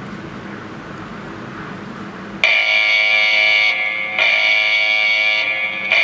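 Faint hiss, then about two and a half seconds in a wireless alarm base station starts sounding a loud electronic alarm tone. The tone repeats the same phrase about every 1.8 seconds: the base station reacting to the door contact sensor being pulled apart from its magnet during pairing.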